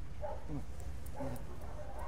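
A dog giving two short, low whining calls that fall in pitch, about half a second in and again just after a second, over a steady low rumble.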